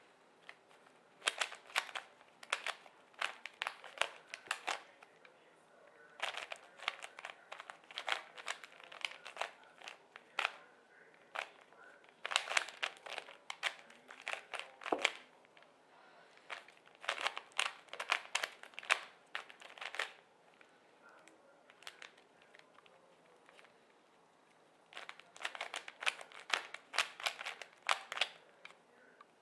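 Plastic Rubik's Cube being turned by hand: rapid clicking and clacking of its layers in runs of a few seconds, broken by short pauses.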